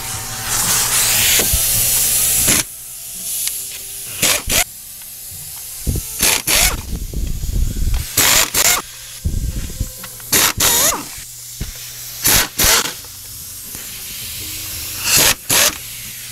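Pneumatic air ratchet run in bursts with its exhaust air hissing, spinning out the 8 mm perimeter bolts of a 3.6 Pentastar V6's lower intake manifold. It runs once for about two and a half seconds, then in a string of short bursts.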